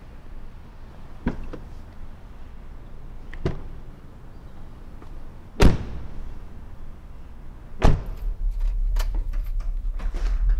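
Car doors shutting in a concrete parking garage: a few light clicks, then two heavy door slams about two seconds apart. After the second slam comes a low steady rumble with a run of small clicks.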